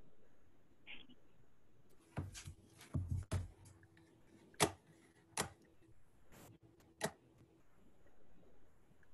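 A scattered run of about eight sharp clicks and knocks, starting about two seconds in, the loudest two about halfway through and a couple of seconds later.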